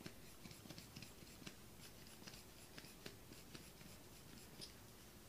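Near silence with faint, scattered small ticks and light scratching: quiet handling of small objects at a work table.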